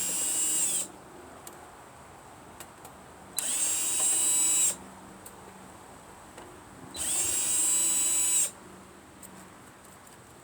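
Power drill-driver running in three short spurts, a high motor whine each time, backing screws out of the casing of scrap stereo equipment.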